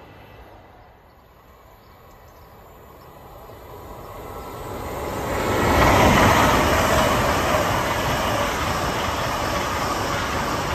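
An LNER Class 800 Azuma train passing close by on the main line. The noise of wheels and air is faint at first and builds from about three seconds in. It is loudest as the train draws level at around six seconds, then stays loud while the carriages run past.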